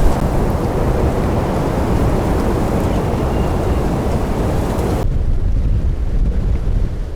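Strong gusty wind buffeting the microphone: a loud, continuous low rumble with a rushing hiss over it. About five seconds in, the hiss drops away abruptly and the low rumble carries on.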